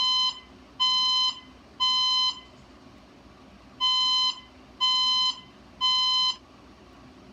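Fire alarm sounding the temporal-three evacuation tone: three loud beeps of about half a second each, a pause, then three more beeps.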